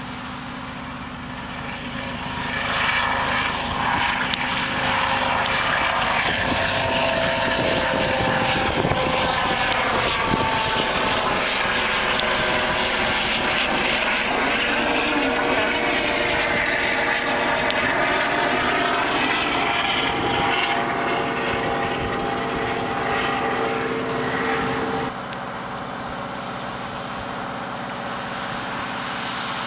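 An aircraft passing low overhead: its engine noise swells about two and a half seconds in and stays loud, with a slow rise-and-fall sweep in its tone as it goes over. About twenty-five seconds in it cuts off abruptly to a quieter, steady jet-engine sound of an airliner climbing away after takeoff.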